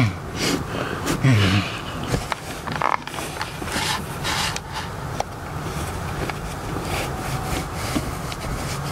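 Seat-cover fabric rubbing and scraping against the truck seat as it is pulled and tucked, with small clicks from its plastic buckles being handled. About a second in, a short falling grunt from the person straining at it.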